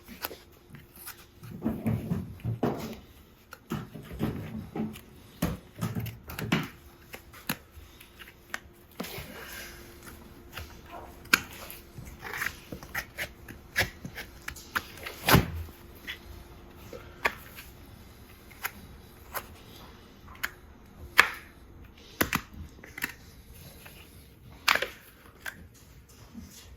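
Farrier's hand work on a horse's hoof: irregular sharp clicks and knocks, two of them louder knocks in the second half, with a few low sounds in the first seconds.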